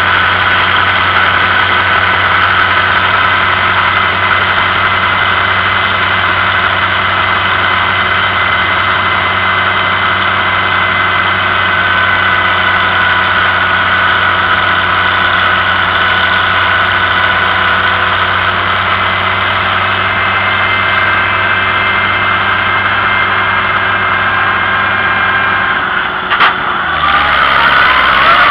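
Vintage farm tractor engine running steadily at road speed. Near the end the engine note drops, there is a sharp click, and the engine speed climbs again.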